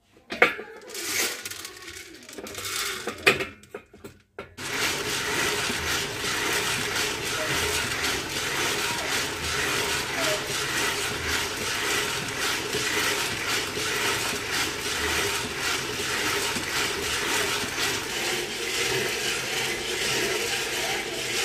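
A few metal clanks as the stainless steel roasting drum is handled. Then, about four and a half seconds in, a steady rushing rattle starts: coffee beans tumbling inside the hand-cranked drum as it turns over a gas burner.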